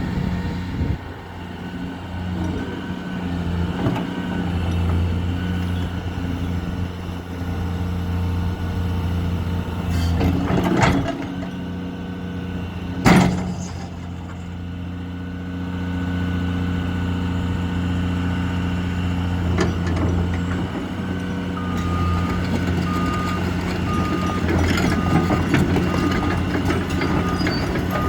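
2011 Cat 336DL excavator's diesel engine running steadily, with sharp knocks about ten and thirteen seconds in, the second the loudest. From about twenty-two seconds in, its travel alarm beeps steadily, about once a second.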